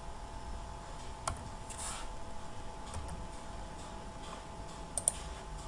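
A handful of soft computer clicks, one at a time with a quick double near the end, over quiet room tone with a faint steady hum.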